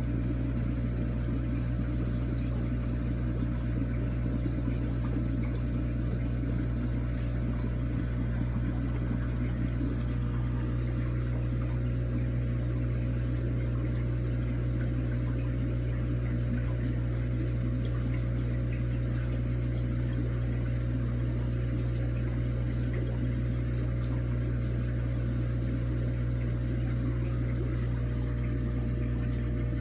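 Aquarium water pump running steadily: a constant low electrical hum with the rush of circulating water.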